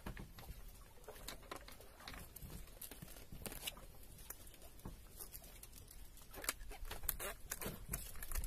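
Faint scattered ticks and patter from a wet fishing handline being hauled in hand over hand on a bamboo outrigger boat, growing busier near the end.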